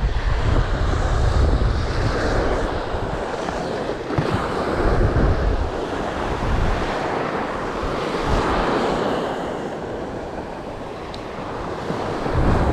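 Surf breaking and washing up the beach, the wash swelling and fading a few times, with wind buffeting the microphone.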